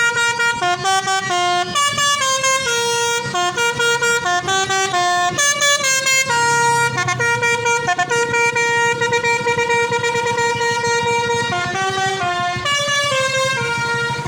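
A bus's basuri musical air horn playing a melody: a run of loud held notes stepping up and down in pitch, starting suddenly. A bus engine runs underneath.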